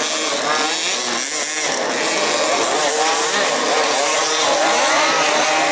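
Several 1/5-scale RC off-road race cars' small two-stroke petrol engines running together, a buzzing mix of overlapping engine notes that keep rising and falling as the cars accelerate and back off around the track.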